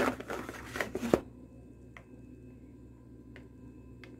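Crinkly rustling with sharp clicks, the sound of a packet being handled by hand, for about the first second, then it stops. A few faint ticks follow.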